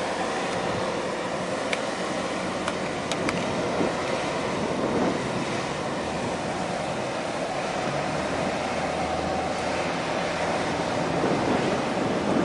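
Steady low engine rumble mixed with the wash of harbour water and wind, with a few faint ticks a couple of seconds in.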